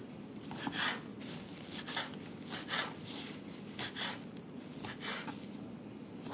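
Kitchen knife chopping fresh basil leaves on a bamboo cutting board: quiet, irregular cuts, about one or two a second.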